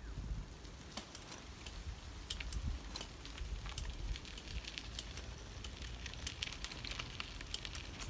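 Bicycle tyres rolling over a gravelly trail: a steady crackle with many scattered sharp clicks, over a low rumble of wind on the microphone.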